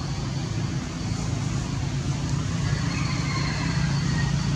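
Steady low rumble of a motor vehicle engine running, with a faint thin high tone over it.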